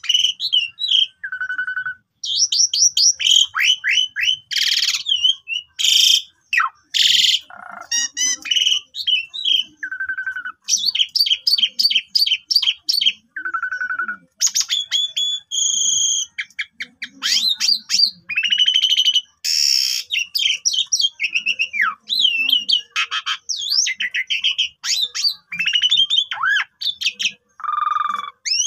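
Asian pied starling (jalak suren) singing a long, varied song of whistles, rapid chattering trills and harsh rasping notes, phrase after phrase with short breaks between.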